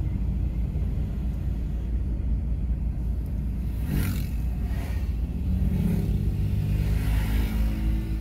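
Steady low road-and-engine rumble heard from inside a moving car. An oncoming vehicle whooshes past about four seconds in, and a pitched engine drone comes up in the second half.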